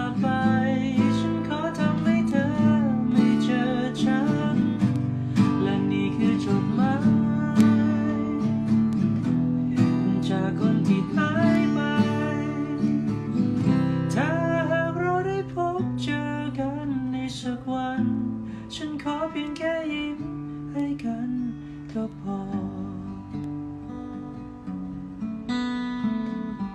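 A man singing a slow Thai song to his own strummed acoustic guitar, growing quieter over the second half.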